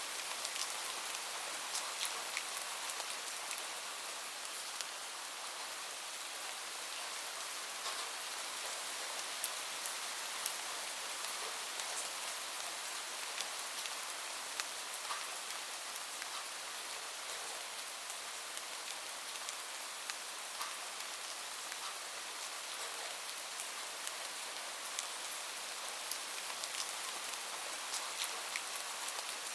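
Steady rain falling, an even hiss with the scattered sharp ticks of individual drops hitting a surface.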